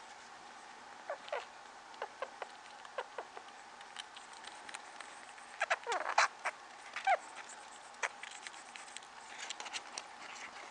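Hairless pet rats with a respiratory infection squeaking and chirping: short high calls that drop in pitch, in small groups with the loudest cluster about six seconds in, amid scattered small clicks.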